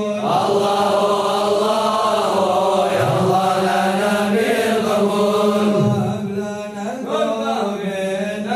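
Crowd of men chanting an Islamic devotional recitation together in unison: a steady held low note under a melody that rises and falls.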